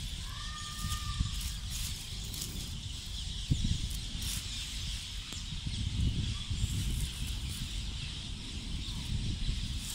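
Rustling and handling noise from logs and leaf litter being moved in a search for newts, with a single sharp knock about three and a half seconds in. A brief rising call sounds near the start.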